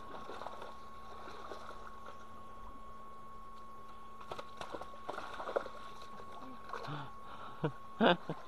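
Shallow muddy pond water splashing and sloshing as a person wades and gropes through it by hand. A few short sharp splashes come in the second half, the loudest cluster near the end, over a steady faint hum.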